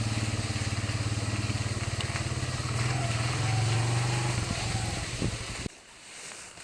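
Engine running steadily with an even pulse, then cutting off suddenly about five and a half seconds in.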